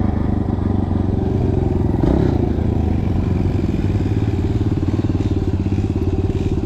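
Kawasaki 110 dirt bike's engine running steadily under way, heard from the rider's seat, with a slight swell in engine note about two seconds in.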